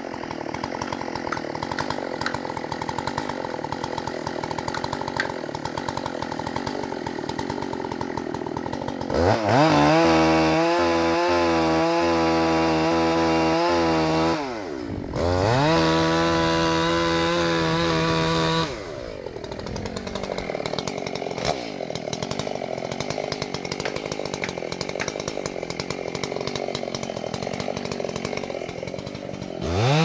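Two-stroke chainsaw felling a casuarina tree: idling, then revved up to full throttle for about five seconds from around nine seconds in, dropping off briefly and revving again for a few seconds, before falling back to idle.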